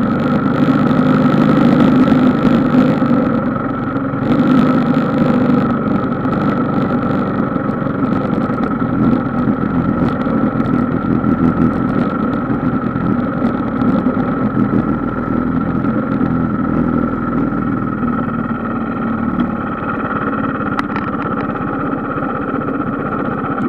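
Engine of a small off-road vehicle running steadily, easing a little quieter in the second half, with a few short handling knocks near the end.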